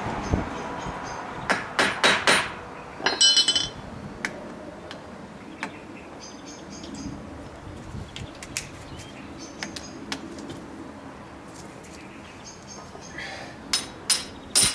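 Hammer blows on a hand impact driver, struck to shock loose a seized screw in a motorcycle's two-stroke power valve mechanism. There are three sharp strikes about two seconds in, then a ringing metallic clatter and light clinks of tools, and a few more strikes near the end.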